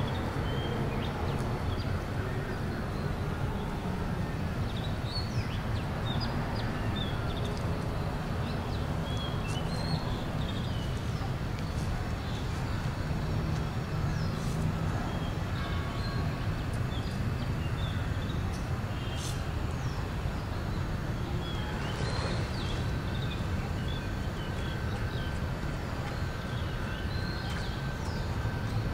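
Steady low rumble of city traffic with many short chirps of small birds scattered through it.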